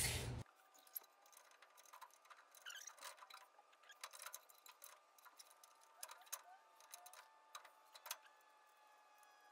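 Faint, scattered metallic clicks and taps of a nut being threaded by hand onto a U-bolt on a truck's lower control arm.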